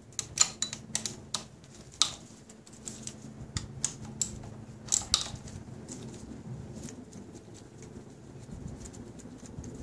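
Ratchet and socket clicking and clinking in irregular sharp bursts while loosening the bolts that hold the power steering high-pressure line to the pump, busiest in the first five seconds and quieter after.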